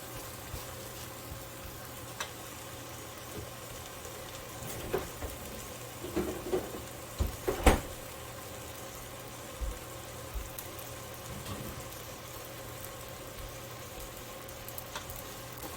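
Eggs and chopped vegetables sizzling steadily in a frying pan, with a few short knocks, the loudest about eight seconds in.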